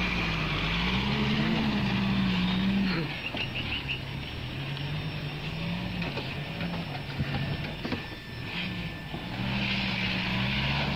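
Heavily loaded pickup truck's engine revving up and down under load as it pushes through deep mud. It is loudest at first, eases off about three seconds in, and revs up again near the end.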